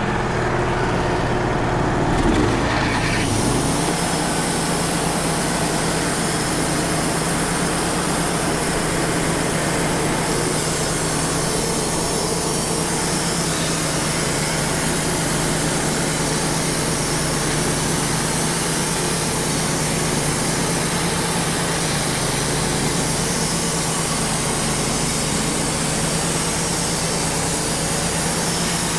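Wood-Mizer LT35 portable band sawmill running on its diesel engine. About three seconds in the sound changes to a steady, loud hiss over the engine hum, as the band blade cuts through a pin oak log.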